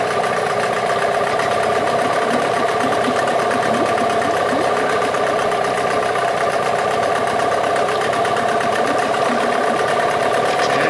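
Yamaha 8 HP two-stroke outboard motor running steadily at an even speed.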